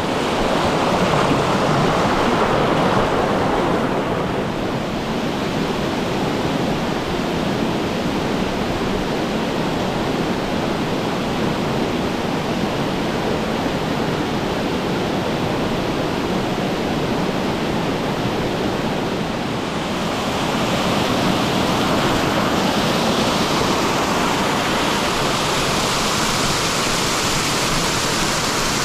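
Mountain stream running, a steady rush of water over rock. About twenty seconds in the rush grows a little louder and hissier.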